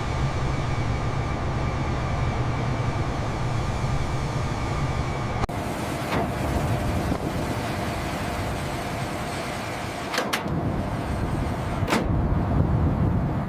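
Steady vehicle engine rumble with a few steady tones. It changes abruptly about five and a half seconds in, and a few sharp clicks come later.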